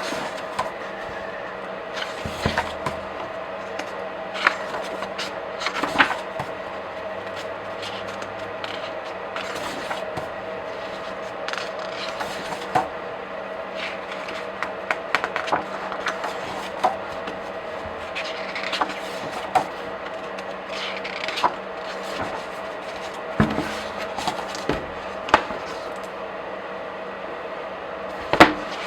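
Comic book and graphic novel pages being flipped by hand: irregular crisp paper turns and rustles, some sharper than others, over a steady background hum.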